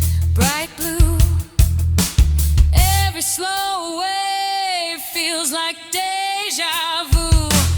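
A pop-rock song: a singer holds long, wavering notes over heavy bass and drum hits. About three seconds in, the bass and drums drop out, leaving the voice almost alone, and they return near the end.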